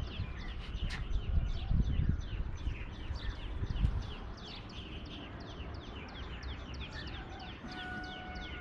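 A bird chirping over and over: a quick, steady run of short falling chirps, several a second. Low rumbles on the microphone in the first half, and a faint held tone near the end.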